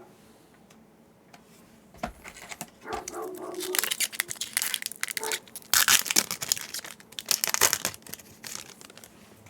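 A foil trading-card booster pack being torn open and crinkled in the hands. The crackling starts about two seconds in and goes on in loud, uneven crinkles until near the end.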